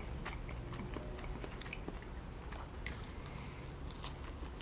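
Close-miked biting and chewing of food: faint, scattered wet mouth clicks.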